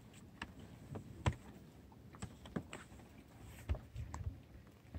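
Scattered light clicks and taps, irregular at one to three a second, with a couple of soft low knocks about four seconds in.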